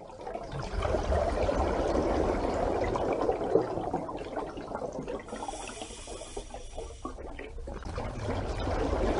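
Running water, a steady wash that is louder for the first few seconds and softer from about five seconds in.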